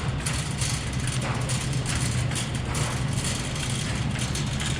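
Steady low hum under a faint even rushing noise: the background machinery hum of a warehouse store.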